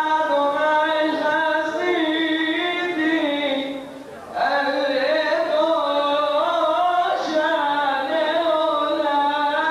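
A man chanting psalms solo into a microphone in a long, ornamented melodic line, with notes held and bent. Two sustained phrases, broken by a brief pause for breath about four seconds in.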